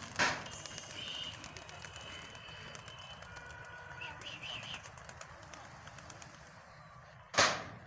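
A large flock of pigeons taking off and flying, a dense patter of wing claps with a few short bird calls. Two loud sudden bursts of noise, one right at the start and a louder one near the end.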